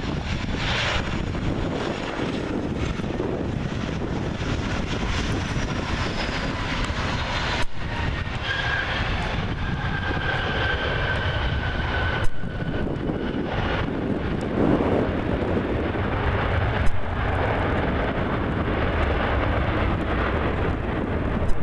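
Boeing 737 jet landing and rolling out, its engines giving a steady rumble. A high whine falls in pitch over the first few seconds, and a steadier whistling tone follows partway through.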